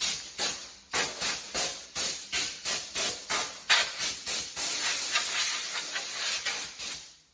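Compressed air hissing from a shop air hose nozzle in short bursts, about three a second, then held as one steady blast for a couple of seconds before it cuts off near the end.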